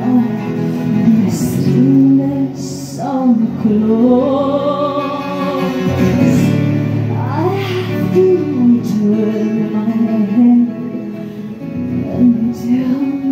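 Live music: a woman singing, with sweeping rises and falls in pitch and a wavering held note, over an acoustic guitar.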